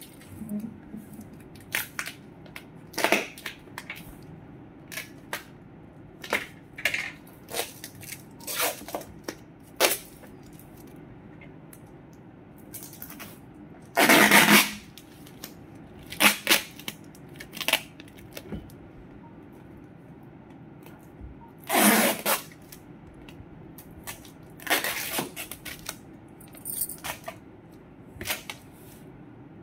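Irregular clicks, taps and rustles of small objects being handled, with a louder rustle about halfway through and another about three quarters of the way through.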